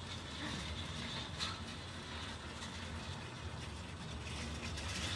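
Shooting range's motorized target carrier running along its overhead rail, bringing the target back up the lane. It makes a steady low hum, with a single light click about a second and a half in.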